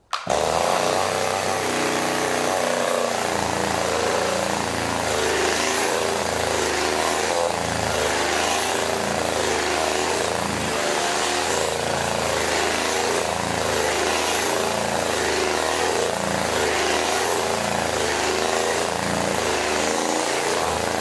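Chainsaw engine running steadily without revving; it cuts in abruptly right at the start.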